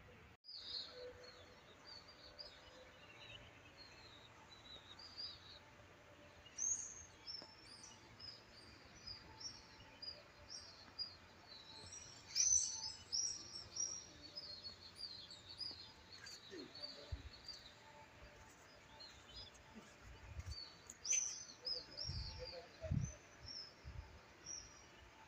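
Many small birds chirping together: a steady chorus of short, high chirps, thickest in the middle and again near the end. A few low thumps sound in the second half.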